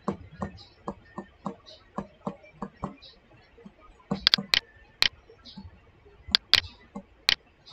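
Stylus tapping on a tablet screen during handwriting: a quick, even run of soft ticks, then several sharper, louder clicks from about four seconds in.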